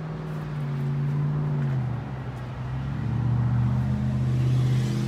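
An engine running with a steady low hum that drops in pitch about two seconds in, then grows louder.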